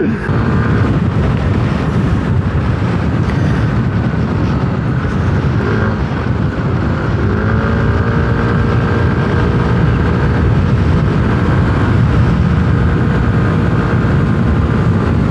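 Yamaha Aerox 155 single-cylinder scooter cruising: a steady engine drone under heavy wind rush on the microphone, the engine note rising slightly about six seconds in.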